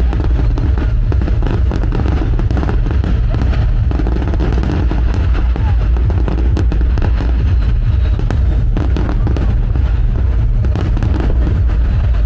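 Aerial fireworks display going off in quick succession: a dense, unbroken run of sharp bangs and crackling over a heavy, constant low booming.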